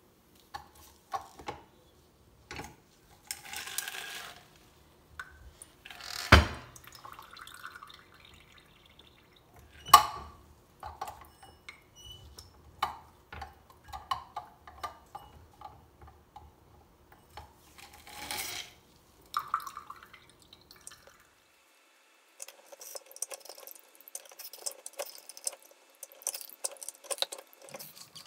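Manual lever citrus press juicing pomegranate halves: scattered knocks and clanks of the stainless cone and lever, two of them sharp, with juice dripping into a glass measuring cup. A dense run of small crackles and drips near the end as the fruit is pressed.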